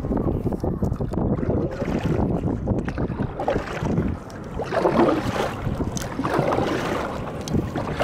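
Wind rumbling across the microphone of a camera on the bow of a moving kayak, with water splashing against the hull now and then, loudest about five seconds in.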